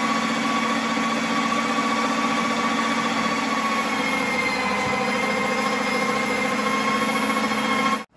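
Electric meat grinder running as it grinds goose breast meat: a steady motor hum with a higher whine, dipping slightly in pitch about halfway through.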